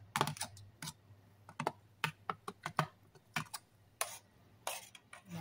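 A small metal spoon clicking and tapping against a plastic tub and a stainless steel saucepan as cooked corn kernels are scraped out and stirred into milk: a run of irregular sharp taps, a few each second.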